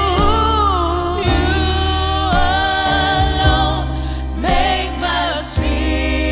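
Contemporary gospel worship song: held, wavering sung melody lines over sustained low accompaniment, with no clear words.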